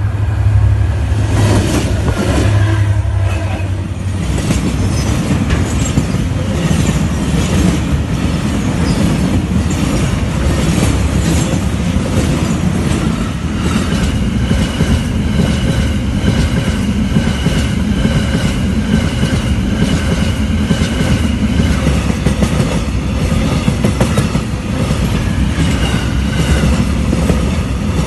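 Freight train of flat wagons passing close by: steady rumble with the wheels clattering over rail joints, a deep hum in the first few seconds, and a high steady wheel squeal joining about halfway through.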